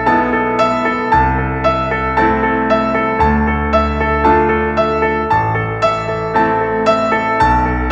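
Relaxing instrumental background music: an even pulse of notes about two a second over a low sustained bass that changes every two seconds or so.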